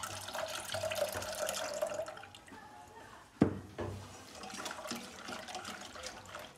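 Milk poured from a plastic bottle into a stainless steel saucepan for about two seconds, then a single sharp knock about three and a half seconds in, followed by a plastic whisk stirring the milk and custard mix in the pan.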